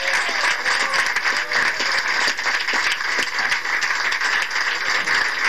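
Audience applauding steadily, a dense patter of many hands clapping, with a few voices mixed in.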